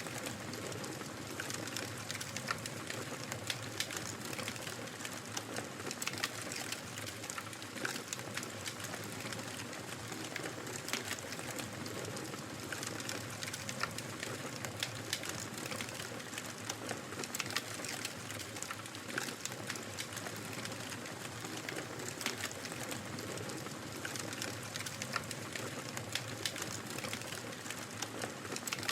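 Wood fire crackling: a steady soft hiss with frequent irregular pops and snaps.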